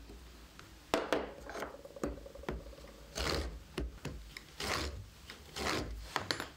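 A marking tool scratching across a bundle of thin wooden kumiko strips, drawn along a straightedge to lay out the joint grooves: a series of separate scratching strokes, some short and a few longer, over a faint low hum.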